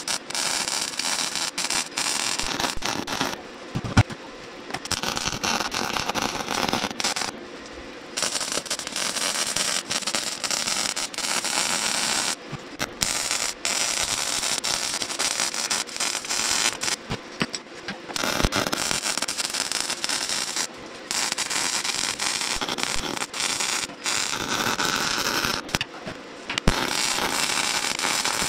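Electric arc welding on a rusty steel tractor fuel tank: a steady crackling hiss in runs of a few seconds, stopping briefly several times as the arc is broken and struck again.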